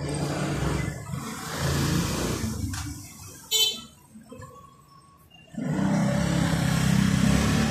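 Street traffic rumbling, with one short vehicle horn beep about three and a half seconds in.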